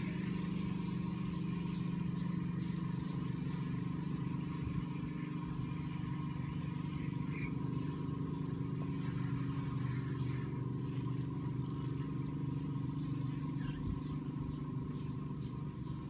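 Outdoor condenser unit of a Carrier split-type air conditioner running: a steady low hum from the compressor and the slow-turning condenser fan.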